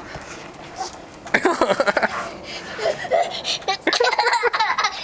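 Young children laughing, a run of short giggles starting about a second and a half in.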